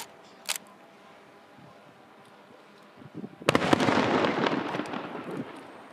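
Aerial fireworks going off: two sharp bangs half a second apart at the start, then about three and a half seconds in a loud, dense spell of crackling pops that dies away over about two seconds.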